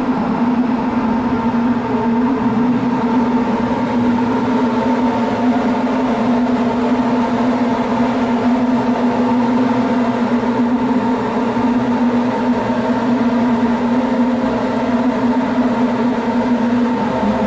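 Soma Laboratories Lyra-8 analog drone synthesizer playing a loud, steady, gritty drone: a low held tone with higher overtones over a rough noisy bed, thickened with reverb.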